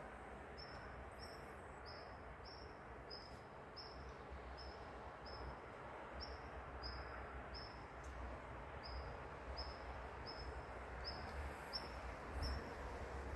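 A small animal chirping: a short, high chirp repeated steadily about twice a second, over faint low background noise.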